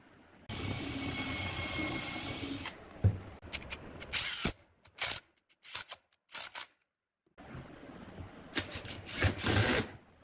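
Cordless drill driving wood screws into pine boards. It runs steadily for about two seconds with a whine, then goes in a series of short trigger bursts.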